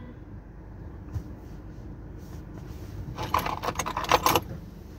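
Small metal objects jingling in a brief cluster of clinks about three seconds in, over a steady low hum inside a car.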